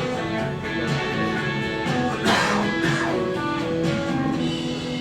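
Recorded music: an instrumental passage of picked and strummed guitar notes, with one louder, brighter hit a little over two seconds in.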